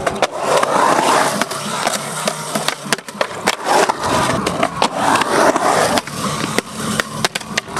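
Skateboard wheels rolling and carving on a concrete bowl. The roar swells and fades with each carve, and sharp clacks of the board and wheels on the concrete and coping are scattered through it.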